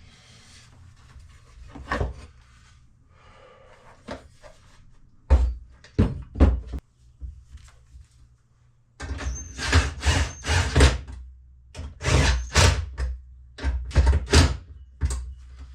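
Knocks and clunks of dirt bike parts being handled and fitted onto the frame: a few sharp knocks about five to seven seconds in, then a busy run of clunks through the second half.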